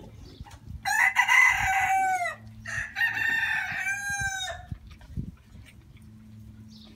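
A rooster crowing twice, each crow ending on a falling note, over a steady low hum.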